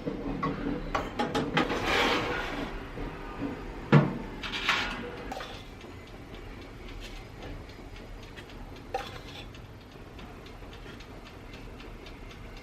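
Clatter of small hard objects being handled, with a sharp knock about four seconds in, then a fainter, even ticking.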